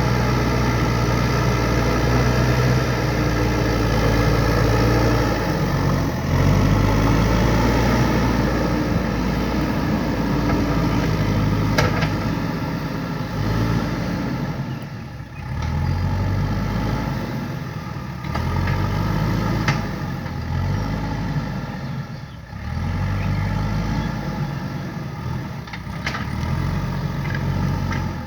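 JCB 3DX backhoe loader's diesel engine running under working load. In the second half its speed dips and picks up again every three to four seconds, with a few sharp clicks.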